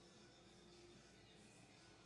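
Near silence: faint, steady hiss with a faint low hum.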